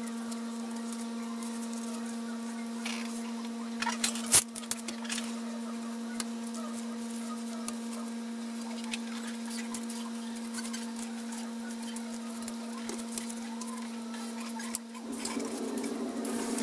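Light clicks, taps and rustling of hands working balsa wing parts, tape and paper on a building board, over a steady electrical hum. One sharp click comes about four seconds in, and a louder rustling of hands rubbing over the paper-covered board starts near the end.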